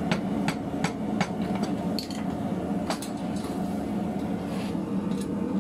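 A steel wire brush is struck and scrubbed against a forged steel bar. It makes a quick run of sharp metallic clinks, about three a second for the first second and a half, then a few scattered ones, over a steady low hum.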